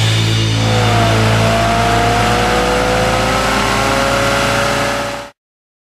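Chrysler Newport doing a burnout: its V8 engine held at high revs while the spinning rear tyres squeal in a long, slowly wavering tone. The sound cuts off suddenly about five seconds in.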